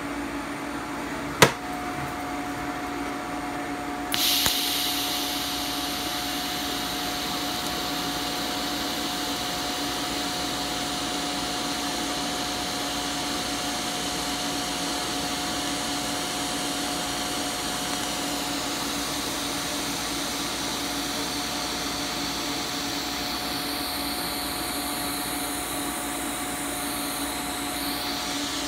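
TIG welding arc on 304 stainless steel at about 100 amps. After a sharp click, the arc starts about four seconds in with a steady hiss that runs until near the end, over a steady background hum.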